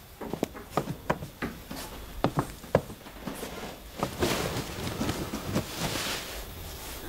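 Hard-soled footsteps clacking irregularly on a floor for about the first three seconds, then a couple of seconds of breathy rustling.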